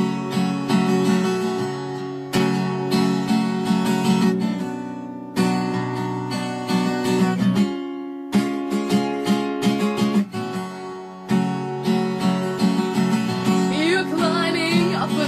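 Music: an instrumental stretch of a song carried by strummed acoustic guitar chords, with a brief break about eight seconds in. A singing voice comes back in near the end.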